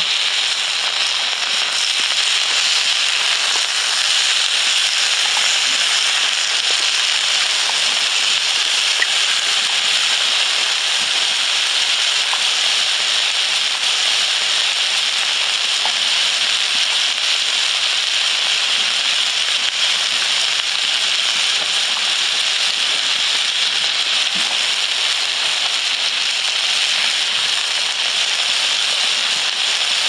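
Chicken pieces sizzling steadily in a hot grill pan over a fire, with scattered faint pops. Potato wedges frying in a pot of hot oil beside it join the sizzle in the second half.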